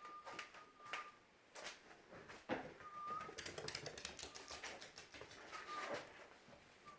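A pet bird making short, steady whistles with rapid clicking between them, the clicks coming fastest about three seconds in.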